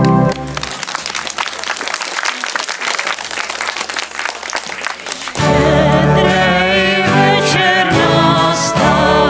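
A band piece on acoustic guitar, keyboard and bass guitar ends just after the start, and an audience applauds for about five seconds. The band then starts the next song with singing, louder than the applause.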